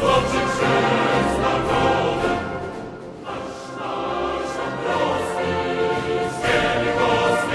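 Choir singing with orchestral accompaniment in a classical style, dipping quieter about three seconds in and then swelling again.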